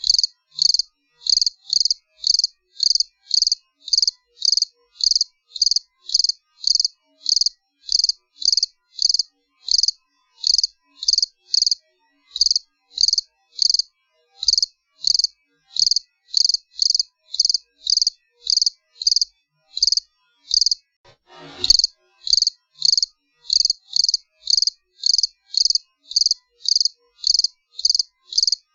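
Cricket chirping steadily, about two high chirps a second in an even rhythm. A brief thump about three-quarters of the way through.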